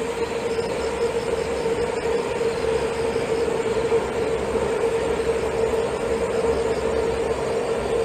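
Taoyuan Airport MRT train running very slowly on a curve. Over the steady rolling rumble sits a single steady tone at about 460 Hz, the tonal noise that the speaker tentatively links to rail corrugation on track with resilient baseplates.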